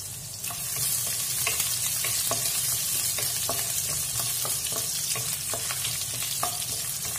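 Chopped garlic and ginger sizzling in hot oil in a nonstick wok, growing louder about a second in, while a wooden spatula stirs them, tapping and scraping the pan about twice a second.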